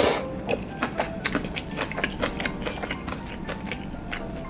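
A mouthful of Jjapagetti noodles slurped in at the start, then close-miked chewing with many quick small wet clicks.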